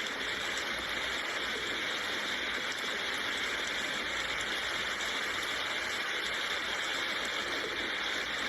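Steady rain falling, an even hiss that holds constant without let-up.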